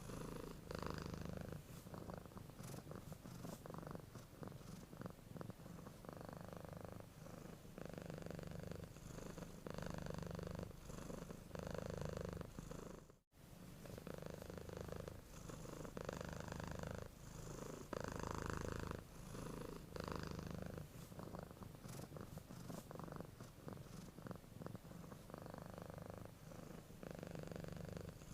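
Domestic cat purring steadily while resting, the rumble swelling and easing with each breath, about once a second. The sound cuts out for an instant about halfway through.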